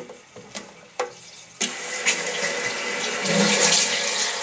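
Two light clicks, then about one and a half seconds in water starts running steadily into the toilet cistern through the newly fitted Fluidmaster fill valve as the service valve on the supply is opened.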